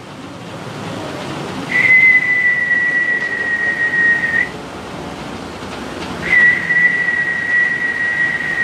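A person whistling two long, steady, high notes at nearly the same pitch, each sagging slightly in pitch. The first lasts nearly three seconds; the second begins about six seconds in and is still going at the end.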